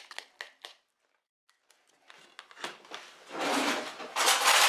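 A utensil stirring deviled-egg filling, mashed quail egg yolks with mayonnaise, in a bowl. Quick light taps at first, a short near-silent gap, then a swelling wet scraping and mixing that grows loudest in the last second and a half.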